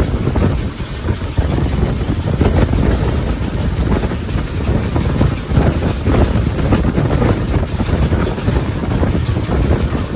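Gunupur Rajya Rani Express passenger train in motion: a steady, loud rumble of the coach running on the track, with wind buffeting the microphone.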